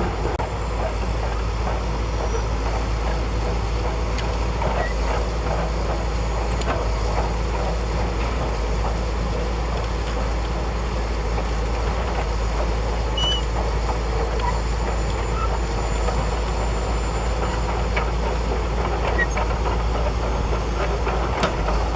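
Shantui DH17C2 crawler bulldozer's diesel engine running steadily with a constant deep rumble, with scattered light clanks from the machine.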